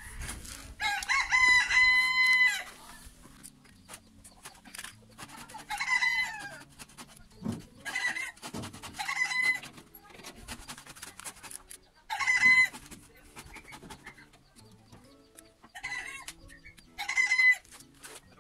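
Rooster crowing: one long crow of about two seconds near the start, then a series of shorter chicken calls.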